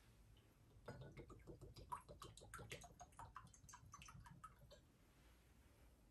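Water poured from a glass cruet into a metal chalice, faint trickling and small splashing blips for about four seconds, as at the purification of the vessels after communion.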